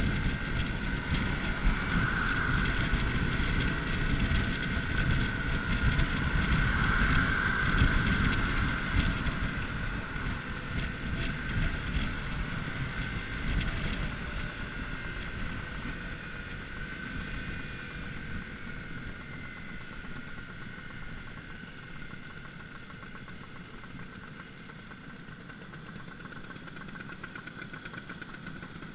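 Vespa GTS Super Sport 125's single-cylinder four-stroke engine running on the road, with wind rushing over the microphone. The noise fades gradually over the second half as the scooter slows.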